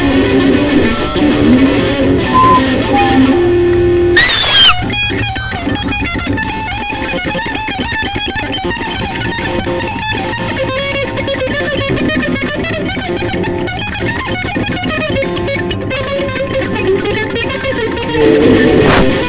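Band music with electric guitar. A short loud noise cuts across it about four seconds in, after which the music runs quieter until it grows louder again near the end.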